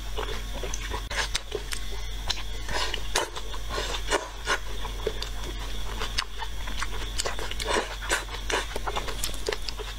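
Close-up slurping and chewing of rice noodles and soup: repeated short wet sucking noises, a couple a second and irregular, over a steady low hum.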